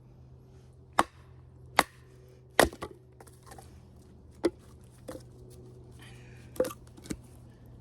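A Work Tuff Gear Night Hunter knife being batoned through wood, with sharp knocks as the baton strikes the spine at irregular intervals: five loud blows and a few lighter ones.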